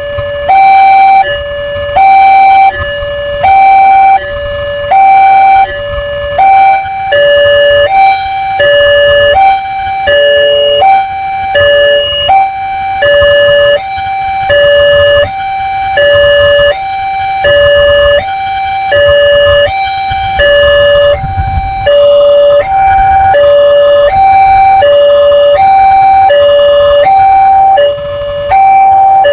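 Railroad level-crossing warning alarm sounding a steady electronic two-tone hi-lo chime, the two tones alternating without a break, over a low rumble.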